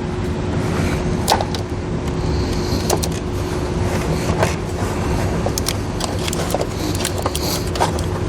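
Scattered light clicks and rustles of plastic parts and wiring being handled as a trailer-wiring converter box is pressed into place behind a car's rear trim panel, over a steady background hum with a constant tone.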